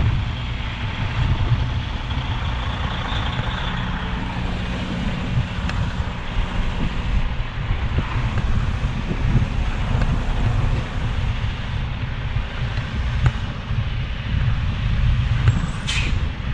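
Semi truck's diesel engine running at idle in gear as the truck rolls along without throttle, heard from inside the cab as a steady low rumble. A brief sharp hiss comes near the end.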